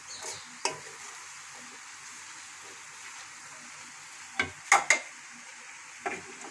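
Mixed vegetables frying in a metal wok with a steady sizzle while a spatula stirs them, with a few sharp scrapes and knocks of the spatula against the pan, loudest in a quick cluster about two-thirds of the way through.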